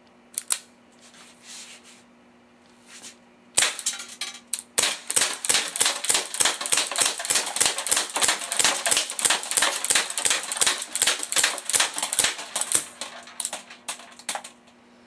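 Airsoft gun firing: a couple of single shots, then a fast string of sharp shots at about five a second for several seconds, thinning out near the end.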